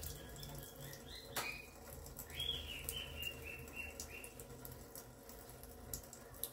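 A small pet bird chirping a quick run of about six short notes, faintly, between about two and four seconds in. Light clicks of a knife slicing a strawberry come and go.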